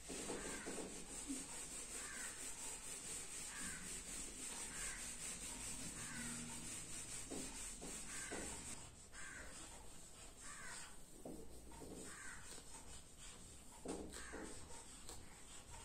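Whiteboard duster rubbing back and forth across a whiteboard in quick, rhythmic strokes for about nine seconds. After that come fainter marker-pen strokes on the board.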